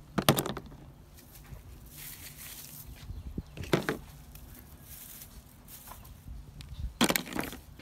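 Small plastic toy parts dropped into a plastic bucket, clattering three times: near the start, a little before the middle and near the end. Dry straw rustles in between as a hand searches through it.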